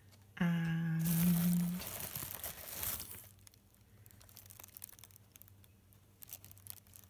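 Plastic packaging bag crinkling for about two seconds as a plastic tube is lifted out of it, begun with a short steady hum from a person. A few faint light ticks of handling follow.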